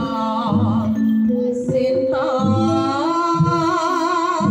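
Live East Javanese jaranan accompaniment: a wavering singing voice over gamelan metallophones, with regular low drum strokes.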